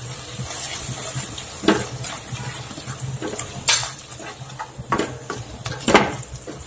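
Wooden spatula stirring a thick onion masala in a non-stick kadai, with several sharper scrapes of the spatula against the pan over a light frying sizzle.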